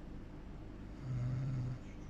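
A sleeping person snoring: one low, loud snore about a second in, lasting under a second, over a steady low hum.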